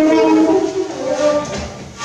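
Live improvised music: wind instruments, shakuhachi and saxophone, hold several overlapping notes that shift slowly in pitch.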